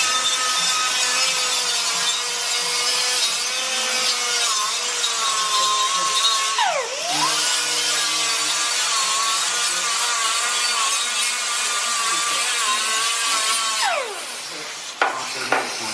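An electric power tool running, its motor pitch wavering under load. It spins down and back up about halfway through, then spins down and stops near the end.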